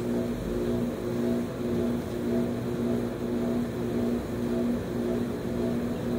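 Commercial clothes dryer running: a steady machine hum with a low tone that pulses on and off in a regular rhythm as the drum turns.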